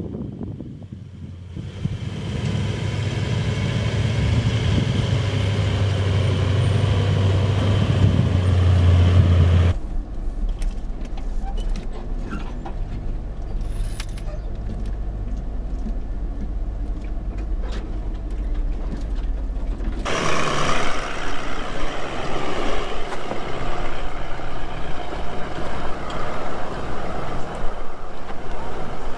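Toyota LandCruiser 200 Series V8 engine working under load up a steep sandy track, its low note growing louder and rising in pitch over the first ten seconds. After an abrupt change it settles into a steadier low drone with a few light ticks, and from about twenty seconds in a rougher crunching of tyres over rock and gravel joins the engine.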